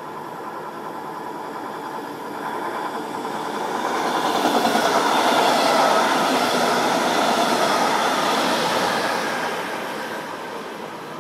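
A DB Regio double-deck push-pull train, with a Class 146 electric locomotive at the rear, passing close at speed: wheels running on the rails in a steady rush of noise. It swells a couple of seconds in, is loudest as the coaches and locomotive go by, and fades as the train draws away.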